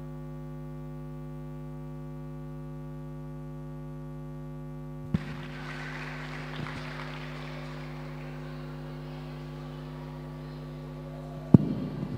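Steady electrical mains hum through the hall's sound system, between music tracks. About five seconds in a click brings in a faint wash of noise, and near the end there is a sharp, loud pop.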